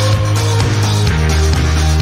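Loud background music with a steady beat.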